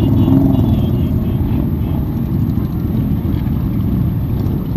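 Motorcycle engines running as a line of motorcycles rides slowly past: a steady, loud, low engine noise with no let-up.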